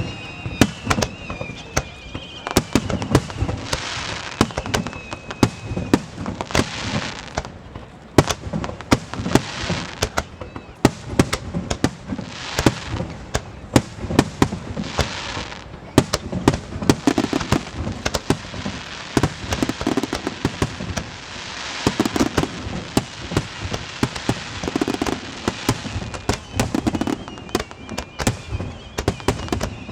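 A large aerial fireworks display with shells bursting in rapid, overlapping succession: deep booms mixed with sharp cracks and crackling, dense throughout. A thin high whistle falls slowly in the first few seconds and returns near the end.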